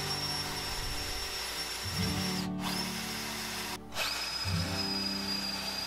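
Cordless drill boring into birch plywood, its motor running steadily as the bit cuts. The sound drops out briefly twice, about two and a half and nearly four seconds in.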